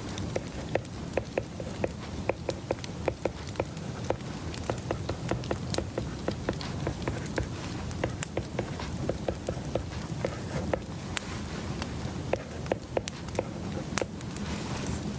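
Desk sounds of someone studying: a quick, irregular run of light clicks and taps, a few a second with short pauses, over a steady background hiss.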